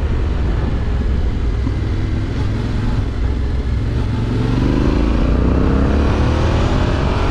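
Yamaha Ténéré 700's parallel-twin engine with an Akrapovič exhaust, running under way with steady wind and road noise. From about halfway through, its pitch climbs steadily as the bike accelerates.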